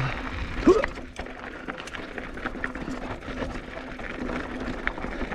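Mountain bike rolling down a rocky trail, rattling and clicking over the rocks with a rumble of tyres and wind underneath.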